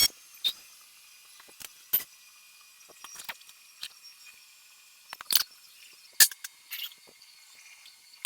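An aluminum TIG welding arc's buzz cuts off right at the start, leaving a quiet shop with scattered sharp clicks and light taps of metal being handled. The loudest taps come just past five and six seconds in.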